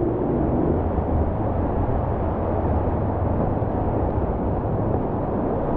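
Whitewater rapids rushing steadily: a loud, even wash of water noise with no distinct splashes.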